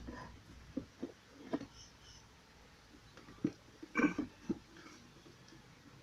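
Scattered light clicks and knocks from handling the diff-oil bottle and funnel, with a louder short clatter about four seconds in.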